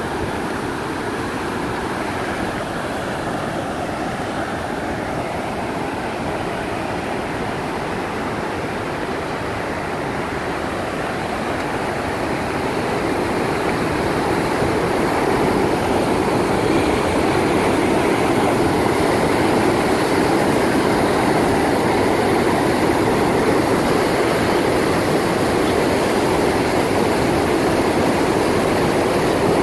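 Steady rush of whitewater pouring over a wide, low river weir and churning below it. It grows louder about halfway through.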